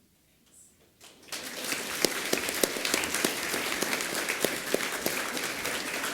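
A large audience of schoolchildren applauding, the clapping starting suddenly about a second in and staying steady.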